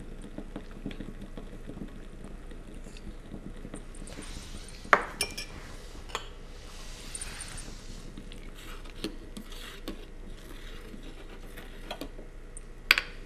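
A metal spoon clinking against a glass saucepan and small bowls while seasoning and stirring soup: a handful of sharp clinks, the loudest about five seconds in and just before the end, with soft scraping and stirring between.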